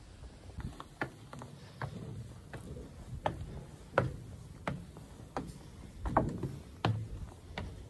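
Footsteps in sneakers climbing wooden stair treads on a steel-framed staircase: an even knock with a low thud about every 0.7 seconds, about ten steps.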